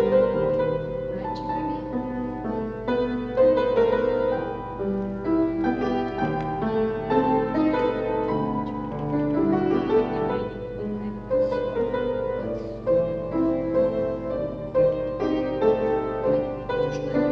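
Piano accompaniment for a ballet barre exercise: a pianist playing a continuous classical-style passage of chords and melody.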